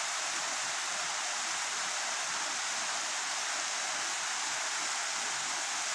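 Steady rush of water from a river cascade, an even hiss that does not change.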